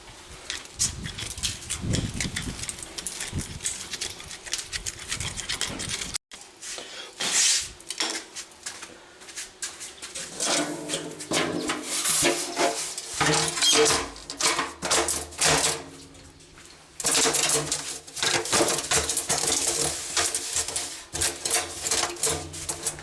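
Cheap kitchen sink clattering, knocking and scraping as it is handled and worked down into a tight concrete countertop cutout. A steady pitched hum runs under the clatter from about ten seconds in.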